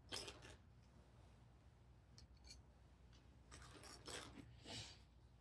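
Faint rustling and light clicks of small plastic building-block pieces being handled and sorted, in a few short bursts.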